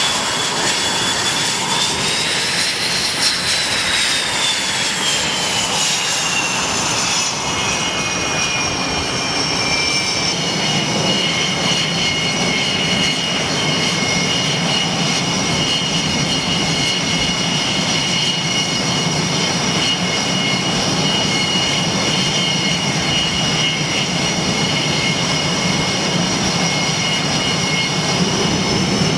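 F/A-18 Hornet's twin jet engines running on a carrier deck, a steady jet roar with a high turbine whine. The whine rises and falls in the first few seconds, then holds at a steady pitch.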